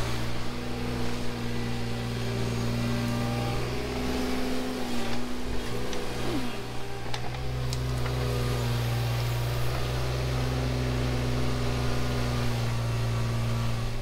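Kubota KX018 mini excavator's diesel engine running steadily under hydraulic load while digging. Its note dips briefly about five seconds in, then picks up again.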